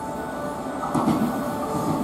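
Electric train, a converted 117-series EMU, pulling in: the rumble of its wheels on the rails rises about a second in, over steady chime tones.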